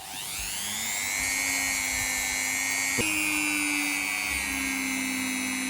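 Small handheld rotary tool with a polishing wheel spinning up with a rising whine, then running steadily. A click about three seconds in, after which the whine sits slightly higher.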